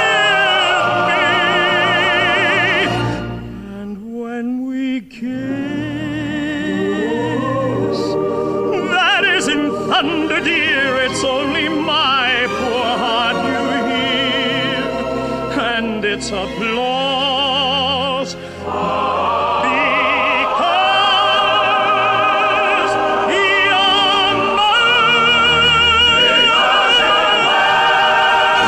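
Operatic singing with a strong vibrato over an orchestral accompaniment, with a short break about four seconds in.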